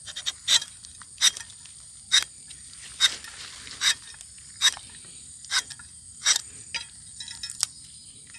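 Rubber-tapping knife shaving a thin strip of bark along the tapping groove of a rubber tree, in about ten short scraping strokes, one a little under every second.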